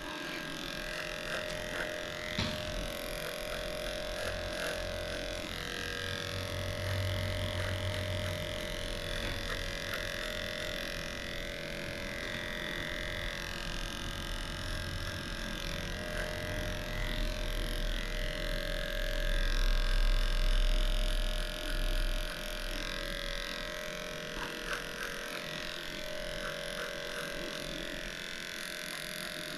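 Electric dog-grooming clippers running with a steady hum as they shave off a matted coat down to the skin. The hum grows louder for a few seconds past the middle.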